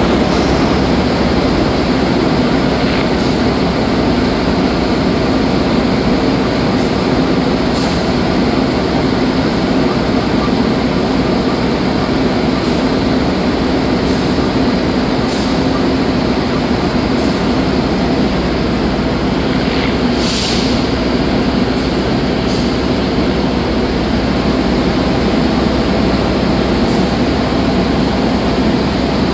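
Diesel engine of a standing train running at idle: a steady hum at an even level. A short hiss comes about twenty seconds in.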